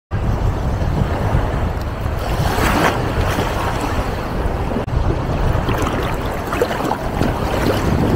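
Gulf of Mexico surf washing in the shallows and breaking at the water's edge, with a heavy low rumble of wind on the microphone.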